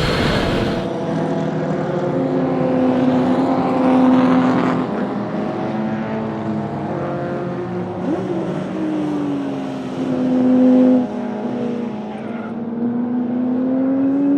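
1961 Ferrari 250 GT SWB's Colombo V12 running hard on track, its pitch climbing under acceleration, dropping sharply partway through and climbing again near the end. A loud hiss cuts off about a second in.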